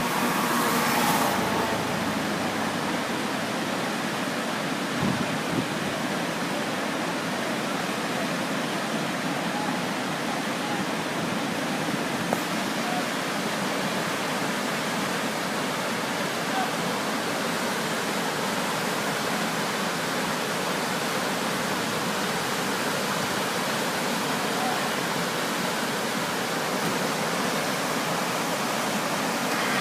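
Whitewater river rapids rushing steadily, an even hiss of churning water, with a couple of brief knocks.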